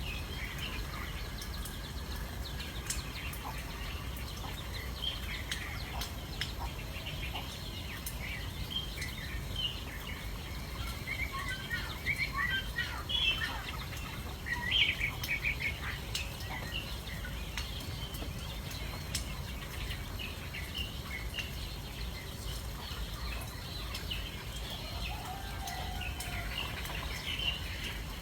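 Small birds chirping: many short, high chirps that come thickest about halfway through, over a steady low rumble.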